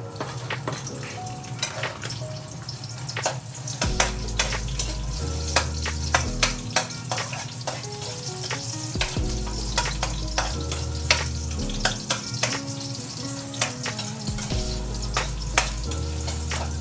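Chopped garlic and onion sizzling in hot oil in an aluminium wok, with a metal spatula clicking and scraping against the pan as it stirs. Background music with a slow, changing bass line plays under it.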